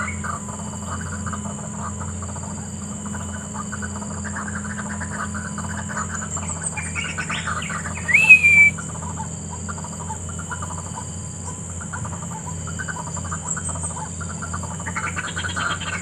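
White-breasted waterhens (burung wak-wak) calling in the scrub: a continuous run of quick, croaking repeated notes, louder at the start and again near the end. About eight seconds in, a short, louder call rises and then falls in pitch. A steady low hum sits underneath.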